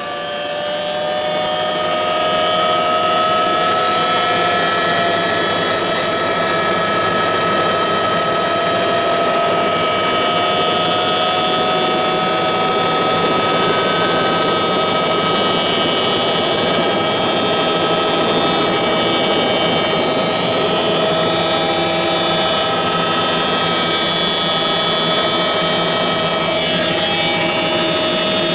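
Helicopter engine and rotor running, heard from inside the cabin: a steady, loud drone with a high whine. It swells over the first two seconds. Near the end the helicopter lifts off and the whine shifts slightly in pitch.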